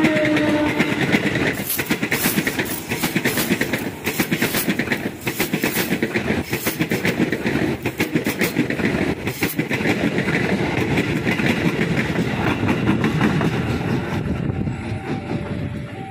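Electric commuter train passing close by, its wheels clattering over rail joints in a fast, irregular run of clicks. The tail of its horn sounds at the very start, and the clatter fades near the end.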